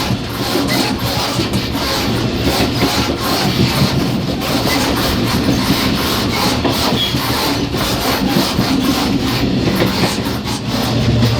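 Taiwan Railways EMU500 electric multiple unit running, heard at the gangway between two cars: a steady loud rumble with continual irregular rattling and rubbing from the car connection. A low hum runs under it and grows stronger near the end.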